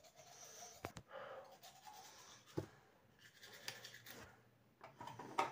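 Faint scrubbing of a manual toothbrush brushing teeth, with a few soft clicks.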